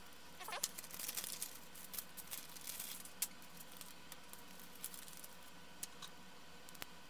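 Plastic parts bags crinkling and rustling as they are handled, densest in the first half, with a few sharp clicks later. A cat gives a short meow about half a second in.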